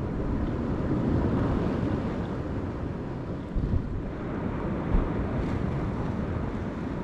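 Sea surf washing with wind buffeting the microphone, a steady rough rush, with a couple of brief thumps around the middle.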